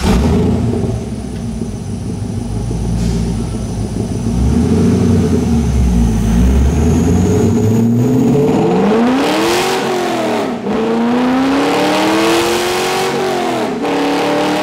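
C5 Corvette's LS V8 breathing through stainless long-tube headers and a high-flow catted X-pipe, run on a chassis dyno: a low, lumpy rumble for several seconds, then the engine note climbs under load, falls back sharply twice and climbs again each time.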